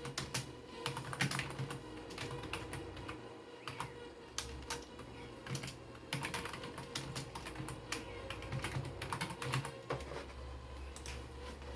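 Typing on a computer keyboard: irregular keystrokes and clicks, over a faint steady electrical hum.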